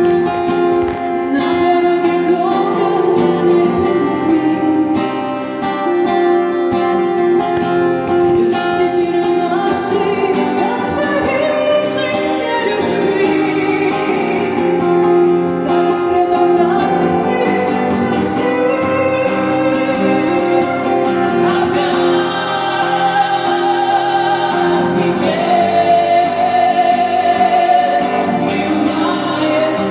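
Music: a woman singing a slow song over guitar accompaniment.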